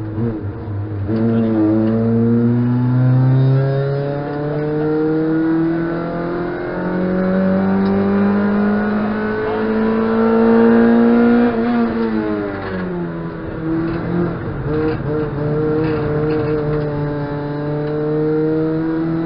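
Car engine heard from inside the cabin of a stripped-out competition hatchback under hard driving on a race circuit, its pitch climbing in long rises, dropping sharply about twelve seconds in and climbing again.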